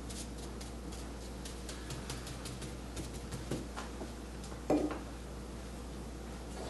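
Soft, quick taps and brushing of a Chinese ink brush dabbing strokes onto Xuan rice paper over a wool felt pad, most dense in the first few seconds, over a steady low hum. One louder knock sounds about two-thirds through.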